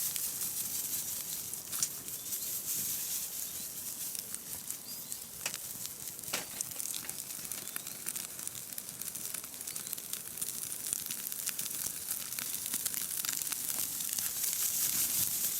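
Chicken thigh sizzling and crackling as it grills over a hot charcoal fire: a steady hiss with scattered pops, one sharper pop about six seconds in.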